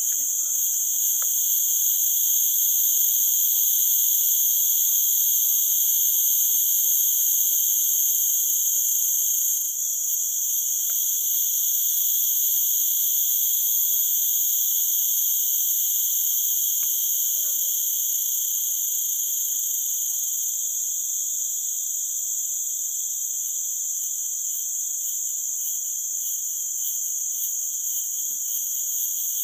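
Dense chorus of tropical forest insects, a loud steady high-pitched drone in several layered pitches, the highest layer shifting slightly about ten and twenty seconds in.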